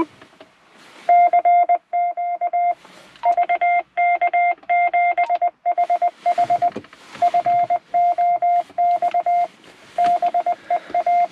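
Hidden fox-hunt transmitter sending its Morse code identification, heard through a handheld radio's speaker: a single steady beeping tone keyed on and off in dots and dashes, starting about a second in.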